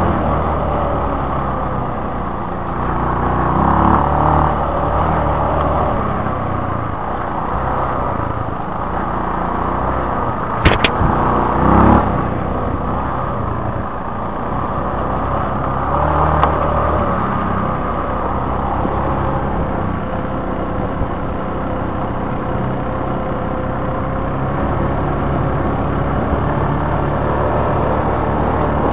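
Honda TLR200 Reflex's single-cylinder four-stroke engine running as the bike is ridden along a dirt trail, its pitch and loudness rising and falling with the throttle. A few sharp knocks come about eleven and twelve seconds in.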